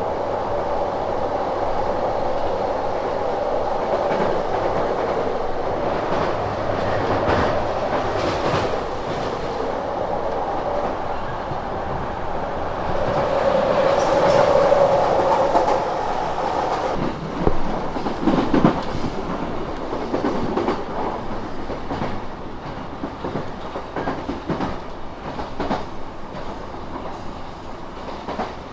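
Running noise inside a Yamanote Line electric train at speed: a steady rumble of wheels on rail, louder for a few seconds midway. From about two-thirds of the way in come irregular clacks as the wheels cross rail joints and points.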